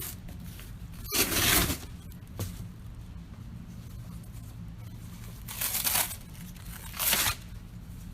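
Dry fallen leaves rustling in three short, crisp bursts, the longest and loudest about a second in, over a steady low background rumble.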